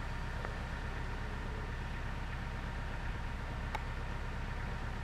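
Steady low mechanical rumble, like an engine running at a constant speed, with a couple of faint clicks.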